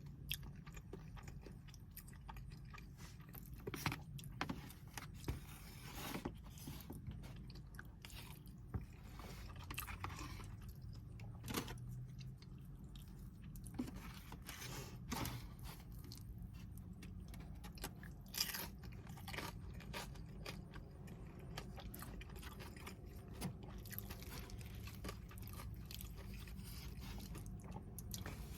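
A person chewing and biting food close to the microphone, with irregular crunches, wet clicks and small scrapes, over a low steady rumble.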